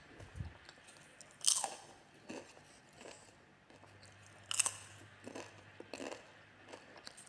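Popcorn crunching: two loud crunches, about a second and a half and four and a half seconds in, with softer crackles between and after them.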